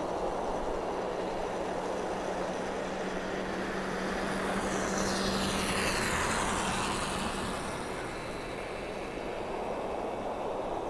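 A motorcycle passing by, its engine sound swelling to a peak about five to six seconds in with a falling whine as it goes past, then fading away over a steady low hum.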